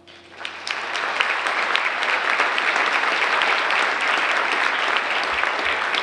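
Audience applause after a choral piece, starting as the last faint piano tones die away and building within the first second to steady, dense clapping.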